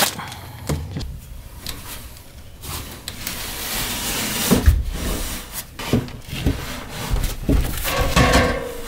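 Someone moving about in an attic over wooden joists: scuffing and rubbing, with repeated dull knocks on the wood.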